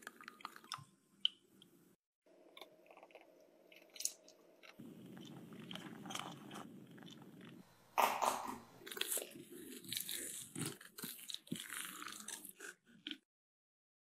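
A whisk stirring thin mochi batter in a plastic bowl, with small clicks. A steady low hum follows for a few seconds. Then thick glutinous-rice mochi dough is pressed and turned with a silicone spatula in a pan, with sticky, wet, crackly sounds that stop shortly before the end.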